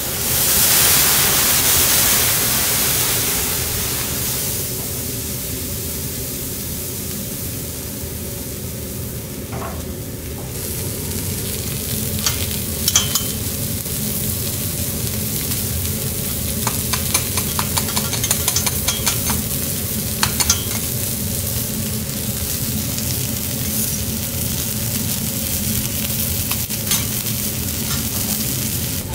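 Patagonian toothfish fillets sizzling on a hot steel teppanyaki griddle. A louder rush of sizzle in the first few seconds settles into a steady hiss. From about twelve seconds in come light clicks and taps of metal spatulas on the plate.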